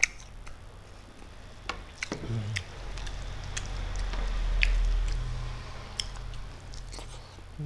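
Close-miked eating: a sip from a small glass of broth at the start, then wet chewing and scattered lip-smacking clicks as rice is eaten by hand. A low rumble swells and fades in the middle.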